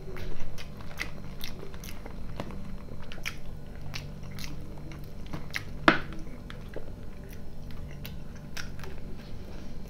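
A person chewing and biting food, salad and bread, with many small wet mouth clicks and one sharper click about six seconds in.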